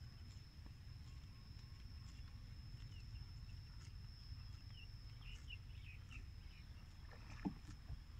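Faint outdoor ambience: a steady low rumble and a thin high whine, with a few short chirps from a small bird about halfway through and a soft knock near the end.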